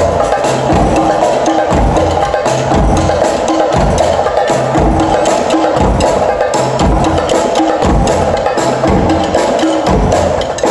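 Live percussion ensemble of drums, cymbals and a hand drum playing a fast, loud rhythm together, with heavy low drum hits falling throughout.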